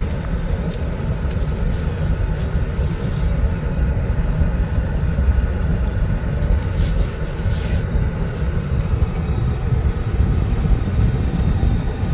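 Steady, loud low rumble of a vehicle in motion: road and wind noise with no engine note.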